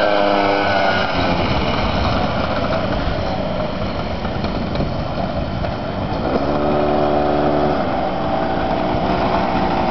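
Full-dresser touring motorcycle engine running, its pitch easing down in the first second. About six seconds in it rises again and holds steady for a second or two.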